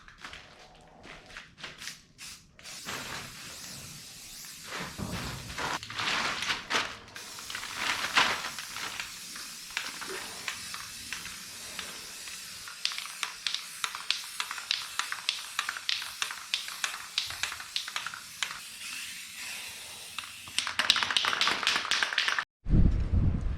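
Aerosol spray paint can hissing in bursts, with short clicks and taps in between; a longer, louder spray near the end cuts off abruptly.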